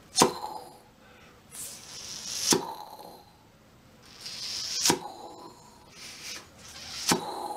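Mouth imitation of a tennis ball being hit: four sharp lip pops about two seconds apart, each joined by a blown, breathy swish that serves as the echo.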